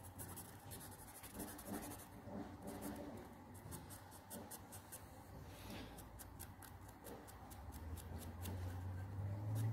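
Felt-tip marker pen scratching across a wooden bow riser in short, quick strokes as the grip is marked out for shaping. A low hum swells near the end.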